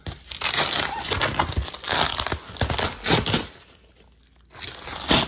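Corrugated cardboard and clear packing tape being torn and pulled apart by hand, in irregular noisy bursts with a short lull about four seconds in.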